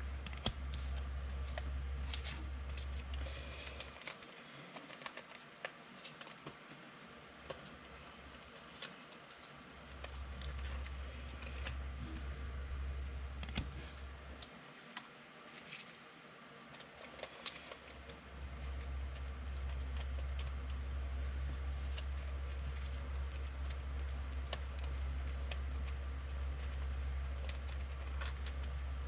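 Scattered light clicks and taps from trading cards and their packaging being handled and sorted, over a steady low electrical hum that drops out twice, at about four seconds in and again near the middle.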